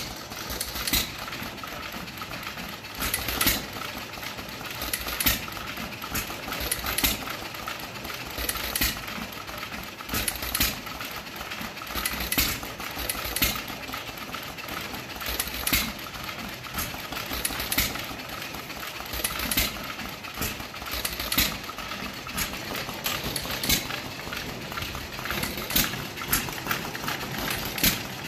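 A 2 hp Novo and a 1½ hp John Deere hit-and-miss engine running together: sharp exhaust pops every second or two as each fires, with a steady mechanical clatter between firings while the flywheels coast.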